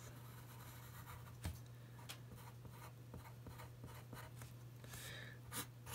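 Faint scratching of a pencil on paper as a line is drawn and then a run of short strokes is added, with one slightly sharper tick about a second and a half in.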